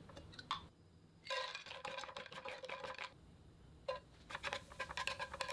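Dried shrimp frying in a little avocado oil in a nonstick pan, making a faint crackling sizzle. It comes in two stretches, each opening with a single click.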